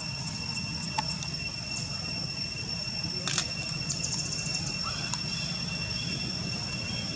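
Steady high-pitched insect drone over a low rumble, with a sharp click about a second in and another a little past three seconds.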